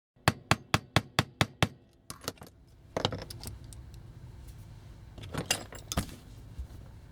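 A quick, even run of about seven sharp clicks, then scattered lighter clicks and knocks: small hard toy parts of metal and plastic being handled on a work surface.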